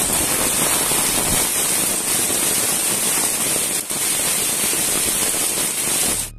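Heavy rain pouring down in a dense, steady hiss. It cuts off abruptly near the end.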